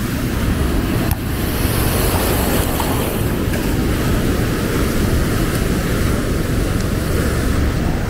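Surf washing up the sand at the water's edge, with steady wind rumble on the microphone.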